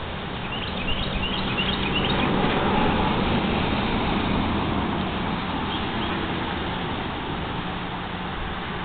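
A vehicle passing, its noise swelling over the first few seconds and then slowly fading, over a steady low hum. A small bird gives a quick run of short chirps about a second in, and one more near the end.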